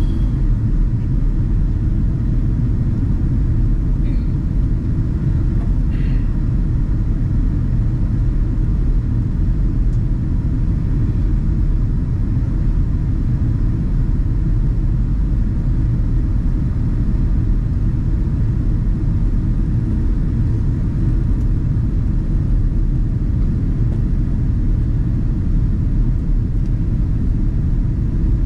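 Steady low rumble of jet airliner cabin noise, engines and airflow heard from inside the cabin during the descent to land.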